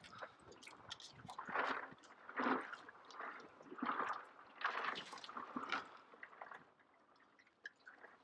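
Fillet knife cutting into a large snapper's head: a run of wet, squelching slicing strokes through flesh and gristle with small clicks between them, dying down near the end.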